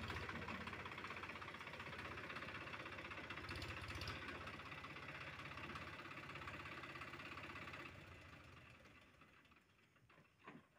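Mahindra Yuvo 275 DI tractor's diesel engine running steadily while the tractor pulls a loaded trailer, fading away near the end.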